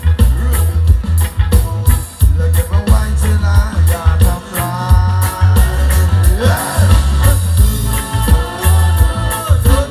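Live band music at a concert, amplified: a heavy bass and drums keeping a steady beat under acoustic guitar and a melody line that bends in pitch.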